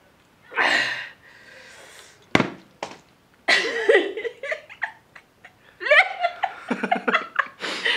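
A woman and a young man laughing and giggling, in two stretches of pulsing laughter, with a single sharp knock about two and a half seconds in.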